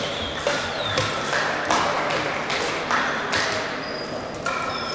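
Crossminton rackets striking the speeder back and forth in a rally: about seven sharp hits, half a second to a second apart, echoing in a large hall. A few short high squeaks from shoes on the hardwood floor come in between.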